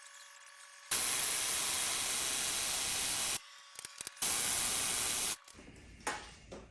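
Two loud bursts of hissing spray, the first about two and a half seconds long and the second about a second, each starting and cutting off sharply.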